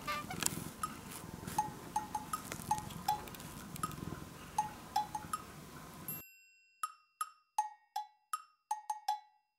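Background music: a light tune of short wood-block-like knocking notes at an even beat. For the first six seconds a low rumble of room and handling noise with faint clicks lies under it, then stops suddenly, leaving the music alone.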